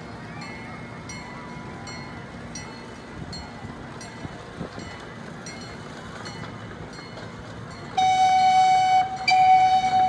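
Miniature zoo train sounding its horn near the end: a sudden steady blast, a brief break, then a second blast held on. Before that, only the train's faint running can be heard.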